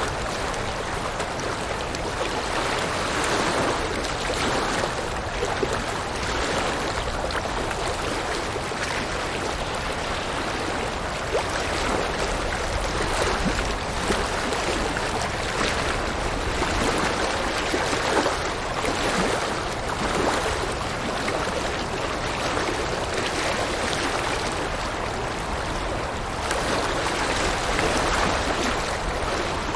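A river or stream flowing over rocks: a steady rushing and gurgling of water that swells and eases gently.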